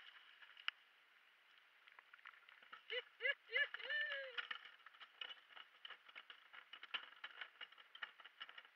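Quick clicks and knocks of a landing net and a netted fish being lifted onto a kayak deck, thickening into a dense patter of taps in the second half. About three seconds in, a voice gives a few short exclamations rising in pitch, then one longer call.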